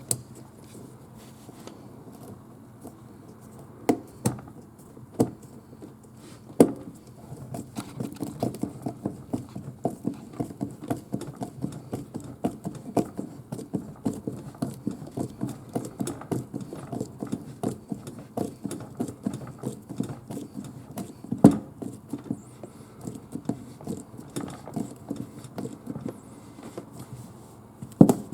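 Hose clamp on a dishwasher drain line being tightened with a hand tool: a few separate knocks, then rapid, even clicking and rattling, with one louder knock about two-thirds of the way through.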